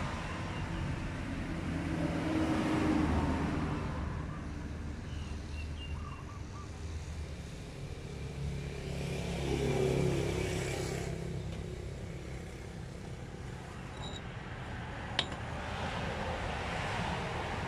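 Motor vehicles passing on the road: engines swell and fade as they go by, loudest about three and ten seconds in. A single sharp click comes near the end.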